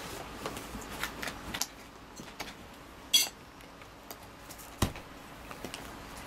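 Cat gnawing and pawing at a cardboard box: irregular clicks and crackles of the cardboard, with a louder crackle about three seconds in and a sharp knock near five seconds.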